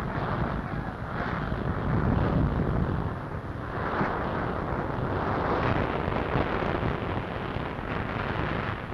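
Continuous rumbling roar of a fire and explosions on an old newsreel soundtrack, swelling and easing without any sharp bangs, over the airship burning.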